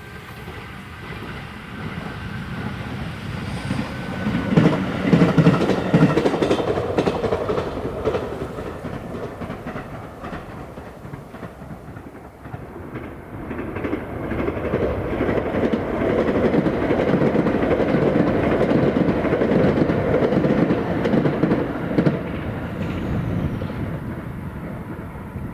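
Electric multiple-unit trains passing on the line, their wheels clicking over the rail joints. One passes about four seconds in, and a longer pass follows from about fourteen seconds to twenty-two.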